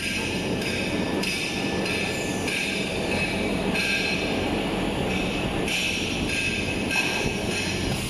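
Tissue-paper roll cutting line running: belt conveyors and the JRT roll band saw cutting machine make a steady mechanical din, with a low hum and a high whine that shifts in pitch and strength every second or so.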